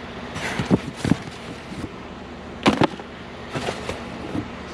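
Handling of plastic ice packs being gathered into a box: several sharp knocks and clatters, a close pair near the middle, with brief rustling between them.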